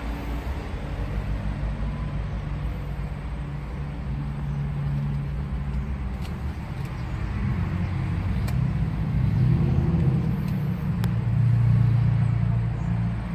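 An engine running steadily with a low hum, louder in the second half, with a few light clicks.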